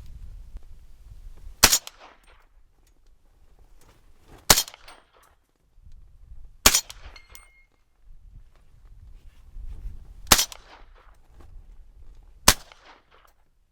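Ruger Mini-14 in 300 AAC Blackout firing five single semi-automatic shots of G2 Research RIP subsonic ammunition, spaced two to four seconds apart, each shot followed by a short echo. The action cycles on this load.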